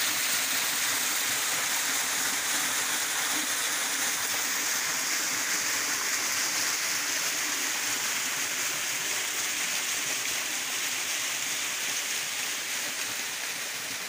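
Small waterfall pouring into a rock pool: a steady rush of falling water, a little fainter near the end.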